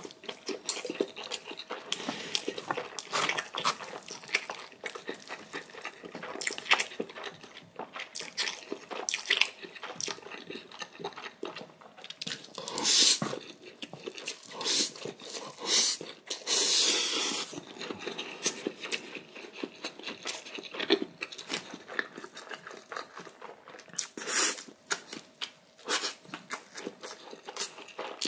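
Close-up eating sounds: steady chewing with crunchy bites of chonggak (ponytail radish) kimchi and noodles. There are many small clicks and a few louder bursts, the longest lasting over a second about halfway through.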